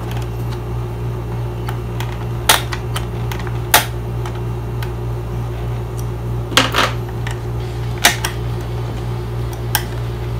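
A handful of sharp clicks and taps, a second or more apart, as a screwdriver and fingers work at the screws of a Honeywell air purifier's plastic control panel. Under them is a steady low hum.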